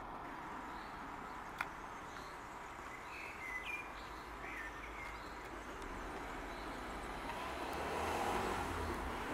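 Outdoor ambience of steady distant traffic noise, with a few short bird chirps between about three and four and a half seconds in. A single sharp click comes about one and a half seconds in. The low traffic rumble grows louder near the end.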